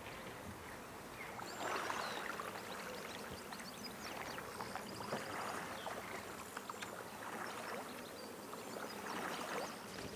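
Water swishing and trickling around a flat-bottomed boat being poled along, with scattered light knocks and clicks.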